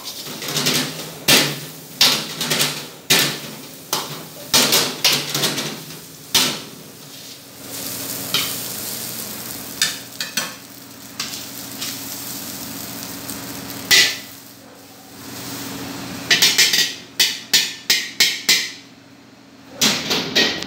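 Metal ladle scraping and clanking against a steel wok as rice is stir-fried, with a steady hum underneath. Later comes a quieter stretch, then a quick run of sharp metal knocks, about three a second.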